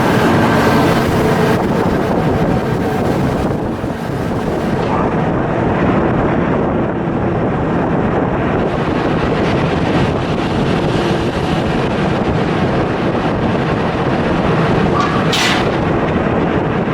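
Steady loud machinery noise, with a brief hiss about fifteen seconds in.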